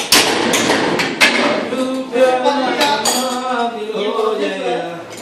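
Short steel bar pieces clanking and clattering against a steel beam, with several sharp metallic knocks in the first two seconds. Men's voices follow.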